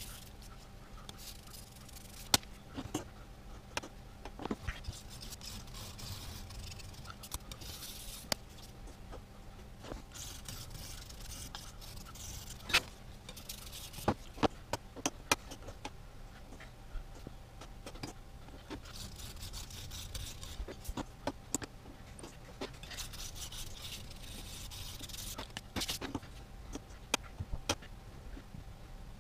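Abrasive sanding stick rubbed back and forth on a plastic quadcopter propeller blade, taking off material to balance the blade. It comes in spells of raspy strokes, with scattered sharp clicks and taps as the prop is handled.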